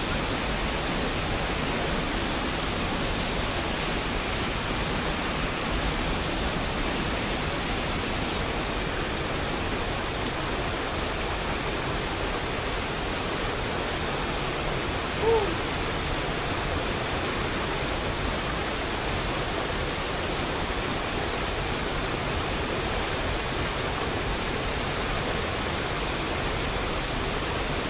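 Mountain waterfall rushing in a steady, unbroken roar of falling water. One brief pitched chirp sounds about halfway through.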